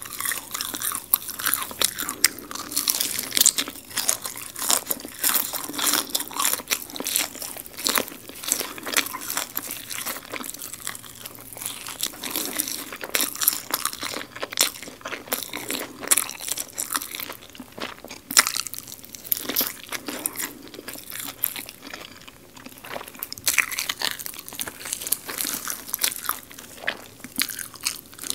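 Biting and chewing crispy garlic fried chicken close to the microphone: a dense run of sharp crunches as the crisp coating breaks.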